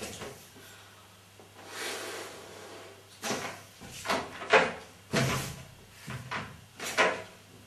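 Partly inflated latex balloon being handled, rubbed and stretched by hand, giving a string of short, irregular squeaks and rubbing sounds.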